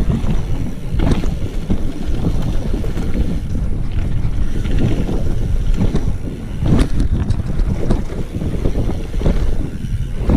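Wind buffeting the microphone as a BMX bike is ridden, over a steady low rumble, with a couple of sharp knocks: one about a second in and one near seven seconds.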